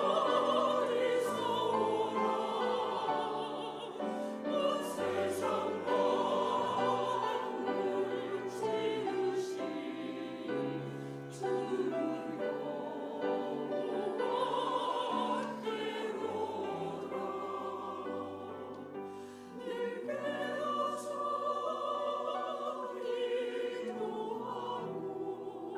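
Church choir singing a sacred anthem of praise.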